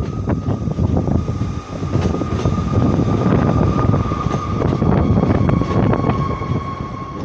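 ScotRail Class 158 diesel multiple unit passing close beneath the bridge: underfloor diesel engine and wheel rumble, with repeated sharp clicks of the wheels over the track and a steady high whine that slowly drops a little in pitch.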